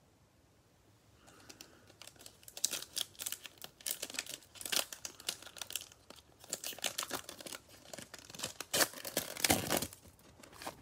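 Foil wrapper of a 2020 Panini Prizm football card pack being torn open and crinkled by gloved hands. A run of crackling tears starts about a second in and keeps going until near the end.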